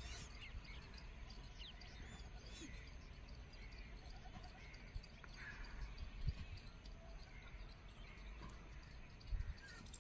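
Faint outdoor field ambience: scattered small bird chirps over a low rumble, with a couple of soft thumps about six and nine seconds in.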